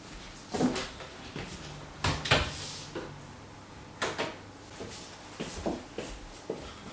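Makeup products being handled: a string of short clicks and knocks as small cases and containers are opened, closed and set down.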